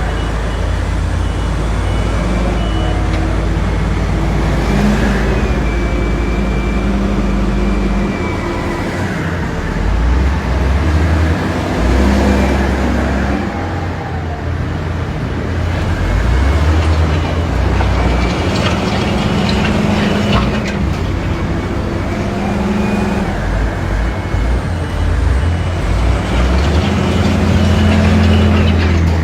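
Heavy diesel earthmoving machinery working, its engines running steadily and repeatedly rising and falling in pitch as they rev under load. A few sharp knocks come about two-thirds of the way through.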